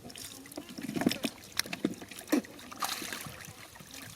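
Shallow muddy water splashing and trickling as hands grope through it for fish, with irregular sharp splashes between about one and three seconds in.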